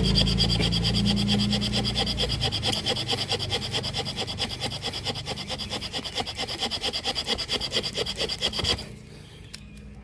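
Bamboo fire saw: a bamboo edge is rubbed rapidly back and forth across a bamboo fireboard in fast, even rasping strokes, several a second, with a high squeal. The sawing stops suddenly near the end.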